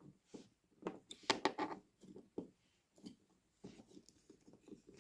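Small scattered clicks and light scraping from fingers working tiny plastic and metal parts: the wheelsets of an HO-scale diesel model's bogie being pressed in against the springy pickup contacts.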